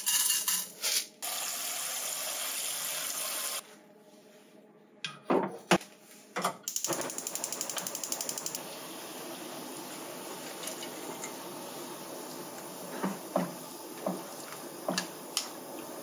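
Kitchen cooking sounds in a nonstick frying pan: coarse salt poured in and a rush of running water, then a few knocks. About halfway through comes a rapid run of even clicks lasting about two seconds, followed by a steady hiss with light taps of tongs against the pan as blanched hijiki seaweed is stirred.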